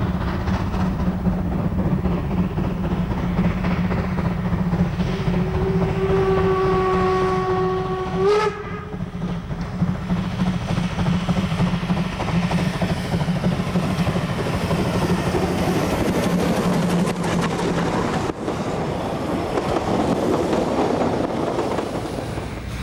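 Narrow-gauge steam locomotive 099 749-4 running under steam, with steady exhaust and running noise. About five seconds in it blows one long whistle lasting about three seconds, which rises briefly in pitch just before it cuts off.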